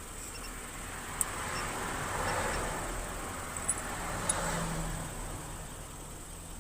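Key blank being fitted into the clamp of an Xhorse Dolphin XP-005 key cutting machine: three sharp small clicks and soft handling rustles, over a faint steady high whine.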